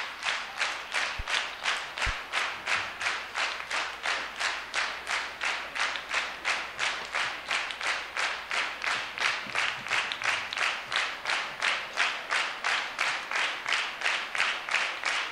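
Audience clapping together in a steady rhythm, about three claps a second: the unison clapping of a crowd calling for an encore.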